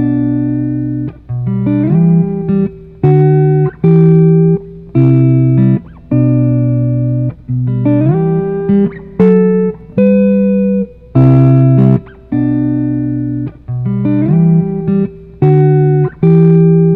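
Background music on guitar: chords struck about once a second, each ringing and dying away, some sliding up in pitch into the next chord.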